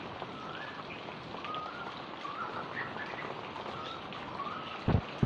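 Steady rain with birds chirping over it; two low thumps near the end.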